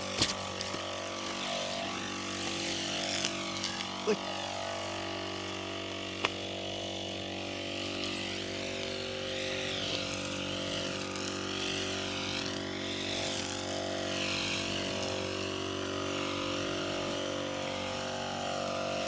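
Petrol brush cutter running steadily as it cuts grass and weeds, its engine note holding level while the higher whir of the cutting head wavers up and down. A few short sharp clicks stand out near the start and about four and six seconds in.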